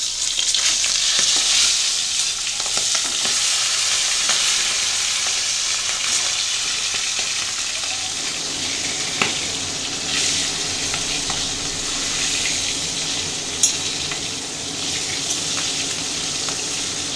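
Catfish pieces frying in hot mustard oil in a metal kadai, a steady sizzling hiss that is strongest in the first couple of seconds. A spatula turns the fish, with a couple of sharp clicks of the spatula against the pan.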